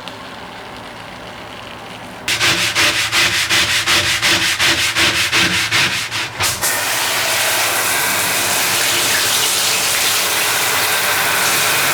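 Rapid back-and-forth scrubbing, about five strokes a second, starting a couple of seconds in and stopping a few seconds later; then a steady, loud hiss takes over.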